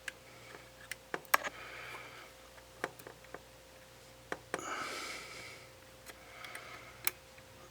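Small sharp clicks and taps of a tool against the small parts of a Nikon D5500 camera body while a ribbon cable is worked into its connector, about nine scattered through. Between them come three soft breathy rushes, like heavy breaths.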